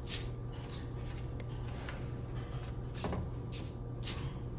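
Fingers picking a cinnamon stick and star anise out of dry rice toasting in a nonstick frying pan: a light rustle of grains with a few sharp clicks, over a steady low hum.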